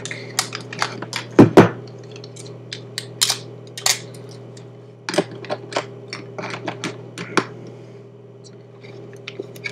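Small plastic clicks, taps and light rattles of iPod accessories and packaging being handled, with two loud knocks about a second and a half in, over a steady low hum.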